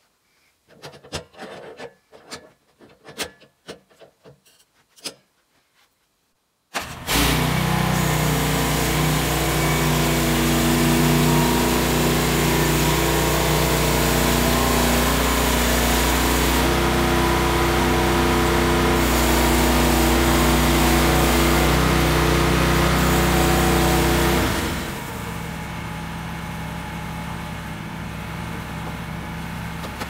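A few clicks and knocks, then the Woodland Mills HM130 sawmill's petrol engine starts abruptly about seven seconds in. It runs loud and steady at high speed for some eighteen seconds, then drops to a quieter, lower idle near the end.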